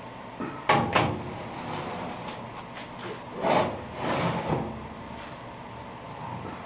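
Workshop handling noises: a couple of sharp knocks about a second in, then scraping and shuffling as parts and tools are moved about.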